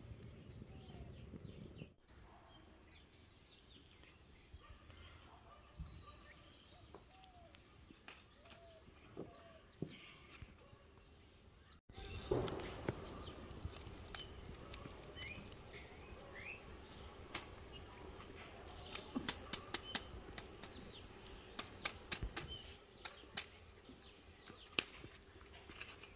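Faint outdoor ambience with birds chirping now and then and scattered sharp clicks and taps. The background changes abruptly about two seconds in and again near the middle.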